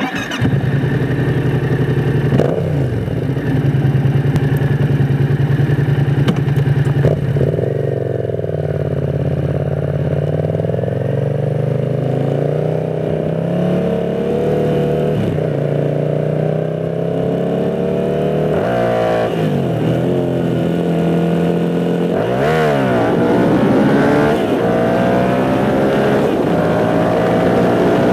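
Yamaha MT-07 parallel-twin engine with an aftermarket MIVV GP carbon exhaust, heard while riding. It is pulling under throttle, its pitch rising and easing off, with several sharp drops and recoveries in the second half as it shifts gears.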